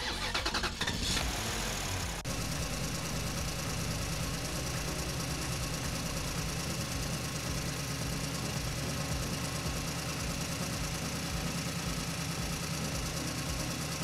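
Tractor engine running steadily at idle, a low even chug with a slow rhythmic pulse; the sound settles into this steady idle about two seconds in.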